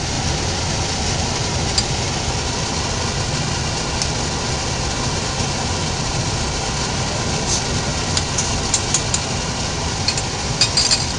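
Tomato-and-water broth for Mexican rice boiling hard in a pot over a gas burner on medium heat: a steady bubbling noise, with a few light clicks of a spoon against the pot near the end.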